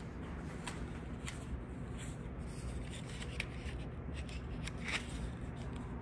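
Footsteps along a carpeted corridor: soft scuffs and light clicks about every two-thirds of a second, over a steady low hum.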